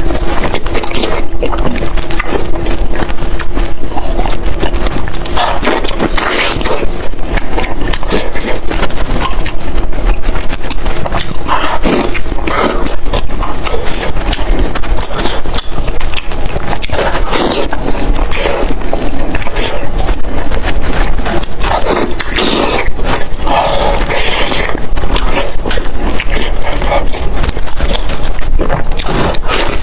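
Loud, close-miked chewing of sheep sausage and mutton-fat-rolled sheep intestine, with dense mouth clicks in quick succession.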